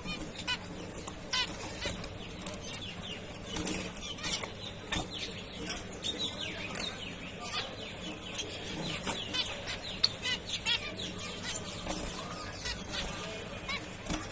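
Several zebra finches calling continually: many short, overlapping chirps.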